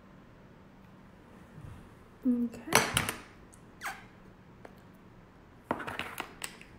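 Makeup brushes and small hard cosmetic containers clicking and clattering on a tabletop as they are set down and picked up, in a few short clusters of knocks.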